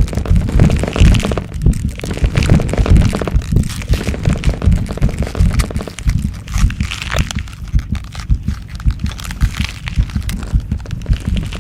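Transformation-growth sound effect: rapid, irregular cracking and crunching layered over a dense, pulsing low rumble.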